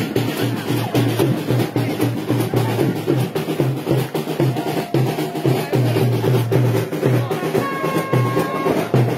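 Loud festival drumming with a steady driving beat, the rhythm for kavadi attam dancing, with a short held higher note sounding about eight seconds in.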